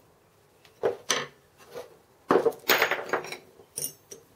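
Small hammer tapping a centre punch to mark holes in cut steel arms on a wooden workbench: a few separate sharp taps, then a quicker run of knocks with some clatter around the middle.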